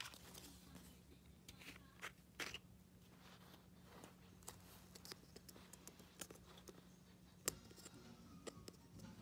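Near silence in a small room: a low steady hum with faint, scattered clicks and light rustles of packaging and objects being handled, the sharpest click about seven and a half seconds in.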